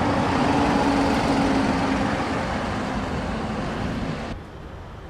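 Motor vehicle engine running amid road traffic noise, with a steady low hum, cutting off suddenly about four seconds in.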